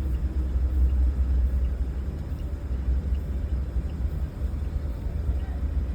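Mahindra Bolero BS6 diesel engine idling steadily, a low rumble, after a completed DPF regeneration.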